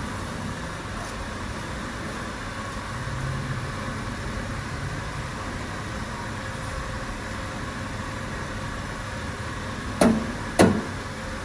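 Steady running noise of factory machinery, with two sharp knocks about half a second apart near the end.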